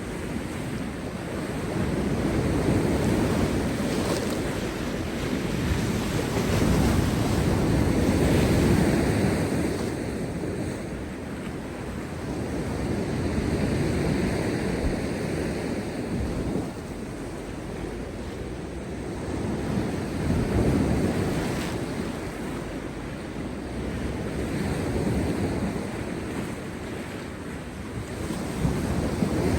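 Heavy storm surf breaking on rocks: waves crashing and washing back in slow surges every few seconds, with wind buffeting the microphone.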